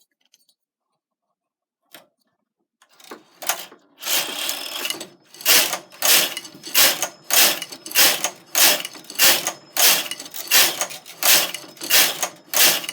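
Knitting machine carriage being run back and forth across the needle bed, knitting plain stockinette rows: a longer rattling pass about four seconds in, then a regular clatter of about one and a half strokes a second.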